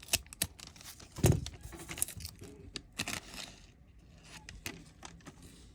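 A thin foil trading-card booster pack crinkling as it is torn open and handled, loudest about a second in and dying down after about three seconds.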